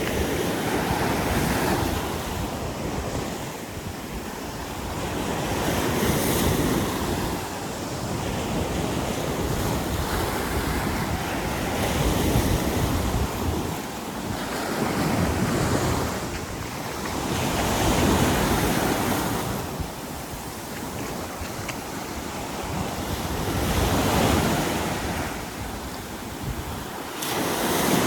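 Waves breaking and washing up on a beach, swelling and fading every few seconds, with wind buffeting the microphone.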